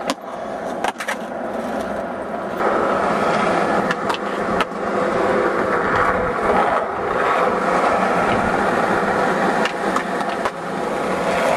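Skateboard wheels rolling on concrete, a steady rolling noise that grows louder from about two and a half seconds in, with sharp clacks of the board popping and landing near the start and again around four seconds in.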